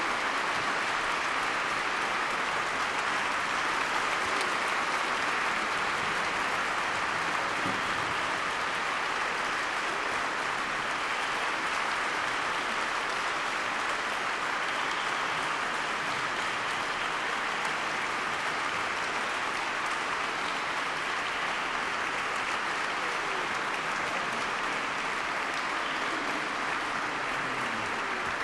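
Concert audience in a church applauding steadily: dense, even clapping that keeps the same level throughout.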